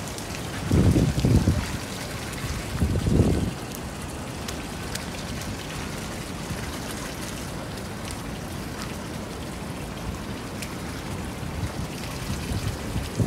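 Steady rain hiss with scattered ticks of individual raindrops. Two bursts of low rumble about a second in and again around three seconds in, wind buffeting the microphone.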